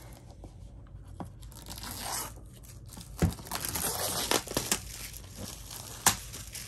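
Clear plastic shrink-wrap being torn and peeled off a cardboard board-game box, crinkling irregularly, with a couple of sharp clicks.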